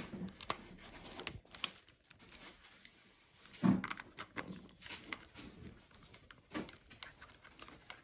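New lock barrel and key being wiggled and pushed into a Swift caravan door handle's housing: a few soft clicks and knocks of metal against plastic as the barrel's tangs are worked into line so it seats.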